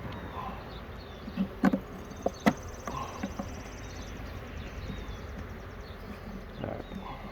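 Honeybees buzzing around an open hive while wooden hive frames knock and click as they are slid over and set back into the box; the sharpest knocks come about one and a half to two and a half seconds in.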